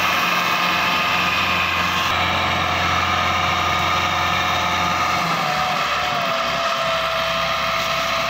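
Massey Ferguson 260 tractor's diesel engine running steadily under load, hauling a trolley piled high with sugarcane.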